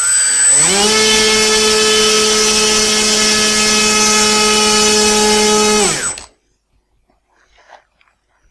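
Electric model-airplane motor and propeller run up to full throttle for a maximum static thrust test. The pitch rises over about the first second, holds steady for about five seconds, then winds down and stops about six seconds in.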